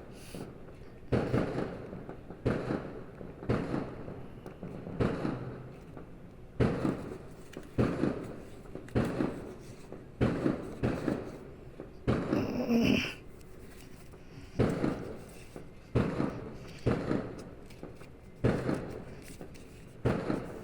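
Fireworks going off in a steady string of bangs, about one a second, each followed by a short rumbling decay. A brief higher, tonal sound comes in a little past halfway.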